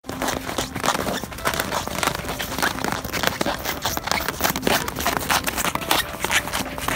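Footsteps of people and horses crunching on packed snow, a dense, irregular run of crackles.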